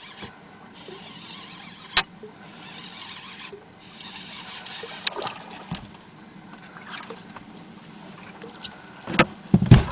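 Quiet, steady background noise aboard a small fishing boat while a fish is played on a rod and reel. There is one sharp click about two seconds in, and a few heavy bumps near the end as the fish comes aboard.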